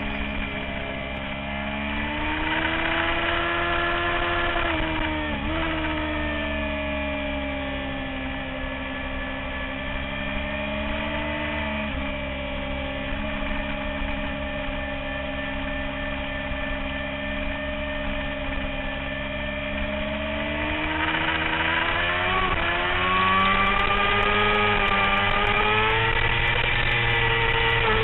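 Sport motorcycle engine on a track lap, heard from an onboard camera: the revs climb, drop sharply about five seconds in, hold fairly steady for a long stretch through the corners, then rise again, dip briefly and climb hard near the end.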